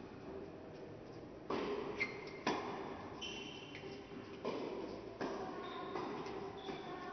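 Tennis ball being struck by rackets and bouncing on an indoor court during a doubles rally: about seven sharp, irregularly spaced hits, each with a short echo in the hall.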